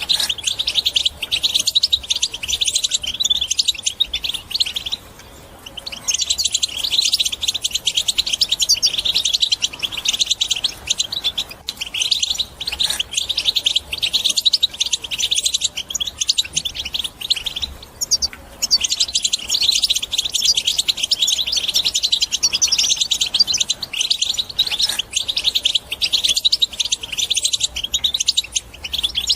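European goldfinch singing a fast, unbroken twittering chatter. The song breaks off briefly twice, about five seconds in and again around eighteen seconds.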